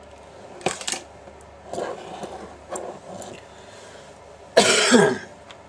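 A man coughing and clearing his sore throat, the loudest bout a little over four and a half seconds in, with a falling rasp at its end.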